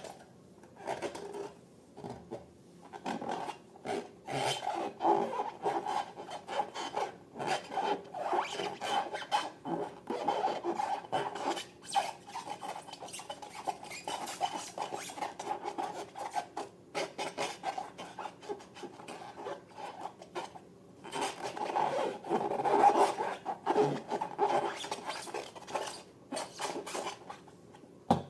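Rough scraping and rubbing in quick, irregular strokes, louder for a few seconds near the end.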